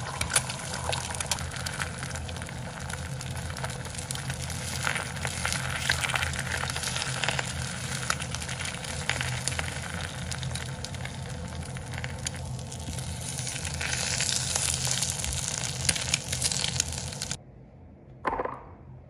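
Food sizzling and crackling as it fries in a pan, over a low steady hum. It cuts off suddenly near the end.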